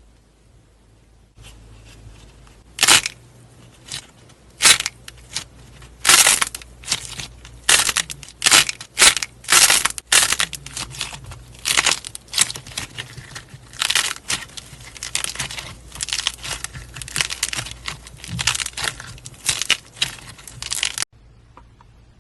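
Slime being pressed, squeezed and pulled apart by hand, making a long run of irregular sharp crackling and tearing pops. It starts about a second in and cuts off abruptly near the end.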